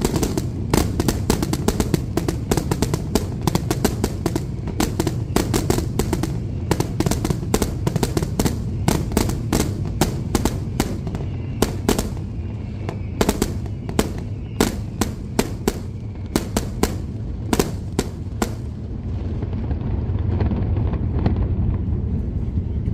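Daylight fireworks going off in a fast, ragged string of sharp bangs, several a second, that thin out and stop a few seconds before the end, over a steady low rumble.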